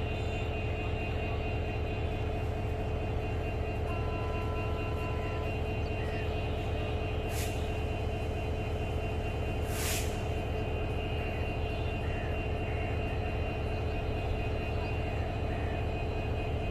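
Diesel locomotive engine running steadily, with two short bursts of air hiss from the brakes about seven and ten seconds in. A faint brief two-note tone sounds about four seconds in.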